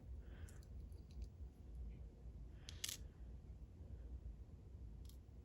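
A few faint clicks of small metal lock parts being handled while a disassembled Clavis pin-tumbler lock is gutted, with one sharper click about three seconds in.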